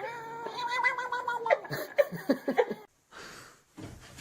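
Domestic cat giving one drawn-out meow lasting about a second and a half, followed by a quick run of short, sharp sounds.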